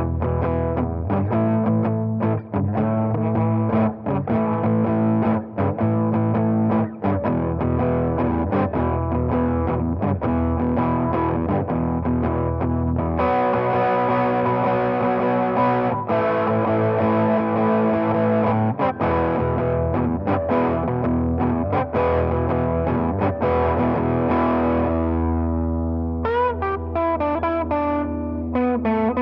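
Electric guitar played through a Custom Screamer V2, a Tube Screamer-style overdrive pedal, giving overdriven notes and chords. The tone turns brighter about halfway through. Near the end a chord rings and fades before playing picks up again.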